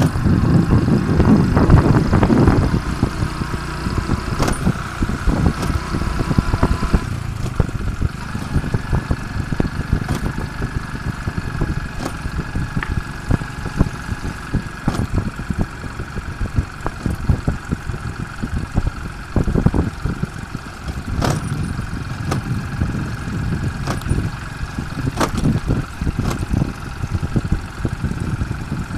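Motorcycle engine running under way on a rough dirt road, with wind rushing over the microphone. Frequent sharp knocks and rattles come through, loudest in the first few seconds.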